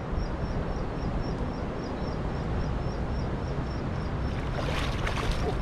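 Steady low rumble of wind on the microphone over river water, with a faint high ticking chirp repeating about three to four times a second. Near the end comes a short splashing rush as a cast net is pulled from the water while wading.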